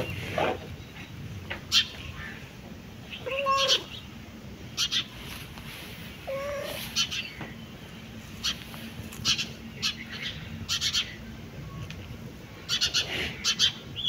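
Domestic cat meowing twice, two short calls that rise and fall in pitch, about three and a half and six and a half seconds in. Brief high-pitched chirps come and go throughout.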